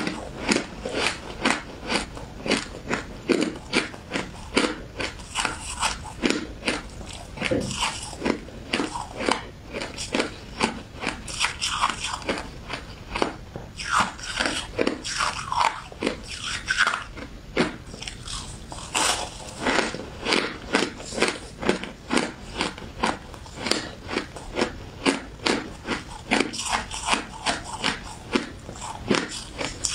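Shaved ice being chewed and crunched close up, a steady run of crisp crunches about two or three a second.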